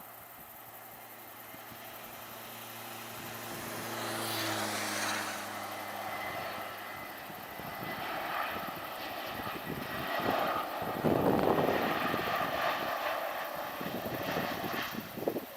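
Airbus A320neo jet going by: its engine tones drop in pitch as it passes about four seconds in, then a loud rushing jet noise swells, loudest about two-thirds of the way through.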